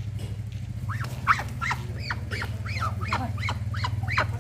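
An animal crying over and over in short, high, rising-and-falling calls, about three a second, starting about a second in. A steady low hum runs underneath.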